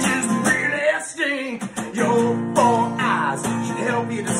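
Acoustic guitar strummed as the accompaniment to a man singing a doo-wop style song.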